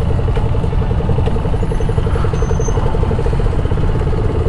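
Single-cylinder TVS Apache RR 310 motorcycle engine idling steadily, a loud low rumble with a rapid, even pulse.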